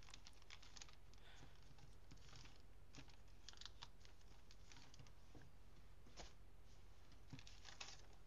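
Faint rustling and scattered crackles of origami paper as it is folded in half and pressed flat by hand.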